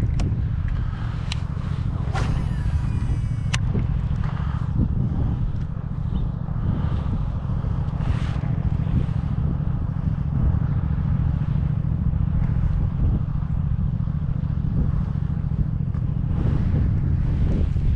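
Wind buffeting the action camera's microphone: a steady low rumble, with a few sharp clicks about two to three seconds in.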